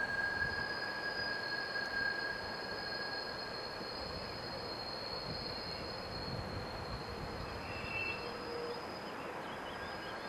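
Rhaetian Railway metre-gauge electric passenger train rolling round a tight curve, its wheels squealing in thin, steady high tones over the rumble of the wheels on the rails.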